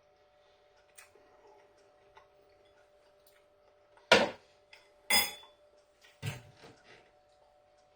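Cutlery clinking against the meal's dish while eating: faint small taps, then a few sharp clinks about four, five and six seconds in, one of them ringing briefly.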